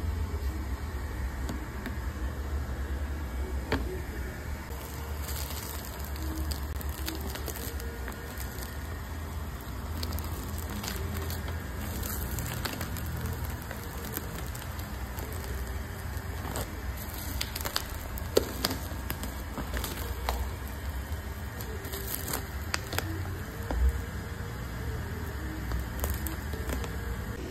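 Tint film being worked onto a plastic motorcycle fairing: the loose plastic film crinkling and a squeegee squishing over the wet film, with scattered small clicks and a steady low rumble underneath.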